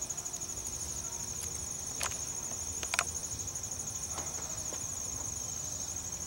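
Insects chirping: a steady, rapidly pulsing high trill, with two sharp clicks about two and three seconds in.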